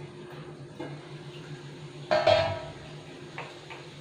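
Stainless steel pan lid coming off and clanking down, with one loud ringing metallic clang about two seconds in and a few lighter clinks around it.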